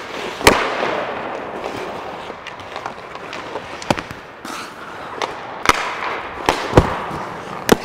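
Sharp cracks of hockey sticks and a puck hitting sticks and goalie pads, about five in all, the loudest about half a second in, over the hissing scrape of skate blades on ice.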